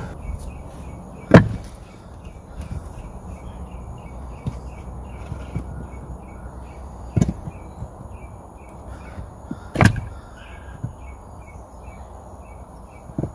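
Cut wooden log rounds knocking against one another as they are set down and stacked: a few sharp knocks, the loudest about a second in and three more spread through the rest. Behind them runs a steady series of high chirps, about three a second.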